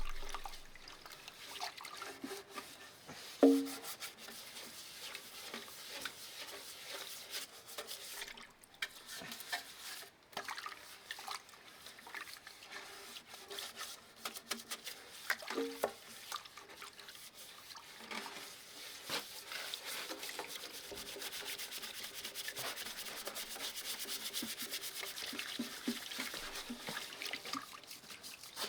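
Scraping and wiping thick oil sludge out of a tractor's removed sheet-metal oil pan, in irregular strokes. A ringing metal clank about three seconds in, and a lighter one midway.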